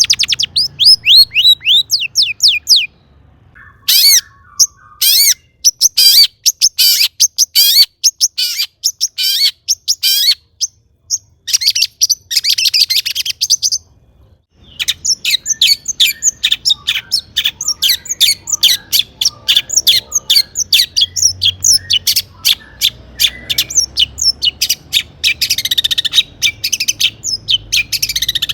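Long-tailed shrike (cendet) singing fast runs of short, high, rapidly repeated notes, broken by brief pauses about three seconds in and near the middle.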